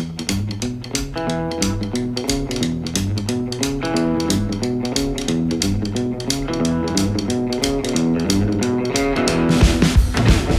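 Background music: guitar-led instrumental with bass and drums keeping a steady beat, growing louder towards the end.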